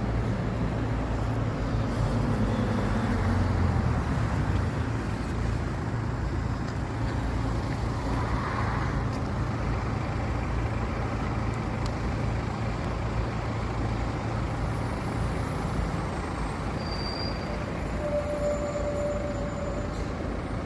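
Steady low engine rumble, with a deeper hum strongest in the first few seconds.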